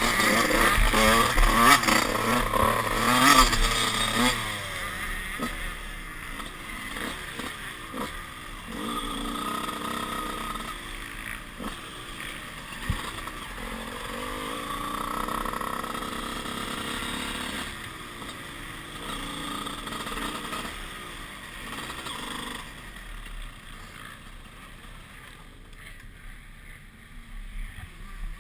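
Two-stroke Honda CR125 motocross engine (Mugen cylinder) revving hard at first, then running at low revs for a long stretch, fading quieter in the last few seconds.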